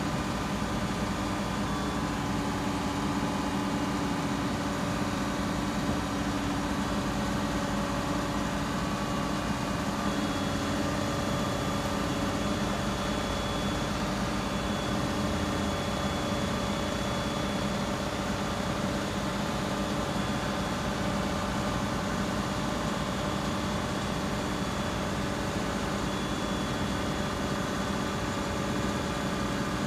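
Cat wheeled excavator's diesel engine running steadily as the hydraulic arm and grab attachment are worked, with a few steady tones that shift slightly about ten seconds in.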